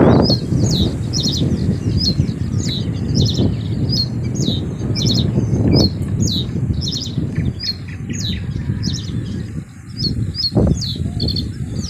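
Birds chirping in quick, repeated high calls, several a second, over a loud low rushing noise that swells now and then.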